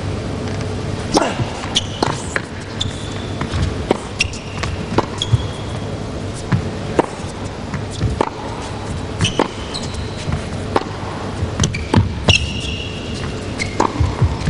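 Tennis rally in an indoor arena: rackets strike the ball and the ball bounces, a sharp crack about once a second, with short shoe squeaks on the court between shots.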